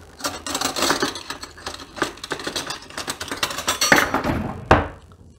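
Metal cutlery clinking and rattling as hands rummage through a kitchen utensil drawer, with one louder knock near the end.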